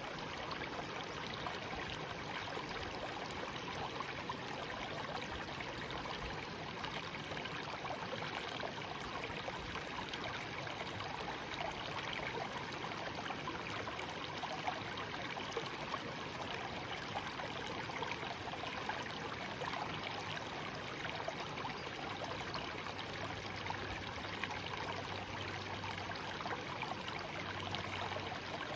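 Small stream flowing and babbling steadily, an even rush of running water.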